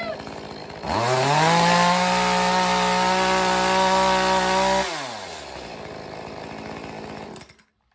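Echo CS-2511T top-handle chainsaw's small two-stroke engine idling, then revved about a second in: it climbs quickly to high speed, holds steady for about four seconds and drops back to idle, before the sound cuts off abruptly near the end. The saw is brand new and being run in after its first cold start.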